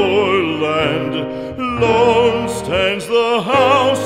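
Background music: a classical-style voice singing a slow song with strong vibrato over instrumental accompaniment.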